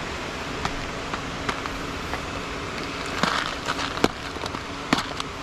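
Steady rush of flowing stream water with scattered small clicks and ticks, a few sharper ones between about three and five seconds in.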